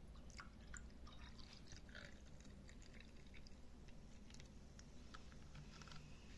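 Faint, scattered small clicks and crackles over a low steady room hum.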